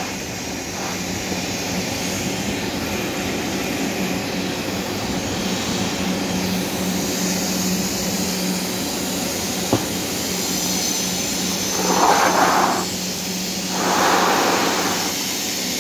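A steady machine drone with a constant low hum throughout, a single sharp click about ten seconds in, and two louder swells near the end.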